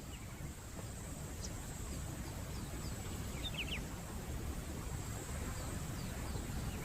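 Wild outdoor ambience: a steady low rumble, with a few faint short bird chirps about three and a half seconds in.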